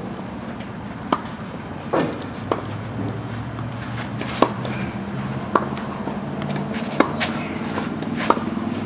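Tennis rally: sharp pops of a tennis ball struck by rackets and bouncing on the court, one about every second or so, over a steady low hum.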